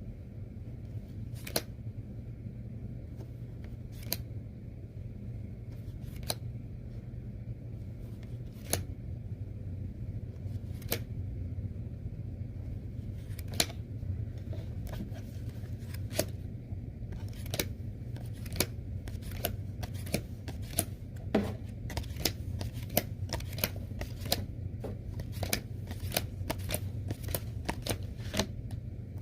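Magic: The Gathering cards being handled: a single sharp card snap every two seconds or so, then, a little past halfway, a quicker run of card clicks and flicks, several a second. A steady low hum runs underneath.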